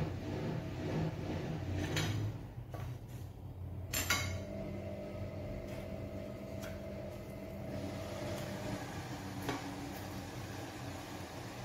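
Kitchenware knocking: a few sharp knocks of dishes or utensils, the loudest about four seconds in leaving a ringing tone that fades out over about five seconds, with a low steady hum beneath.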